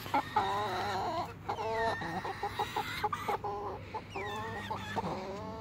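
Chickens clucking and trilling in short wavering calls, the excited food talk of hens being hand-fed mealworms.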